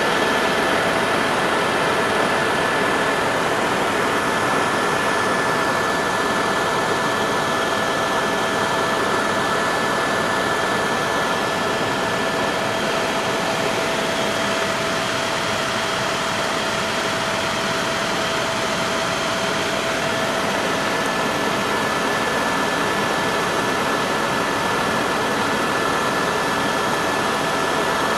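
Helicopter cabin noise in flight: a steady, loud rush of engine and rotor noise with a constant high whine running through it.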